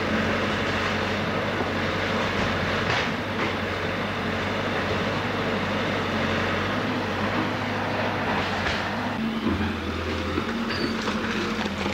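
Diesel engine of demolition machinery running steadily, with crunching and scraping of broken building debris and a few sharp knocks; the engine note shifts about nine seconds in.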